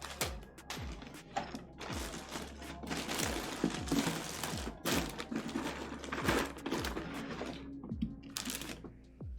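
Background music with a steady, thumping beat, over many sharp clicks and rustling.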